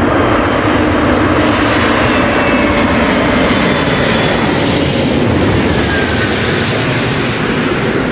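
Antonov An-225 Mriya's six turbofan engines as the giant cargo jet passes low overhead: loud, steady jet engine noise. Its hiss grows brighter about halfway through as the aircraft goes over, and a faint whine falls in pitch.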